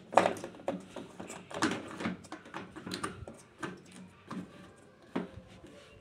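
Plastic drain-pump filter cap being screwed back into its housing on a Samsung front-loading washing machine: a string of light, irregular plastic clicks and scrapes, about one every half second.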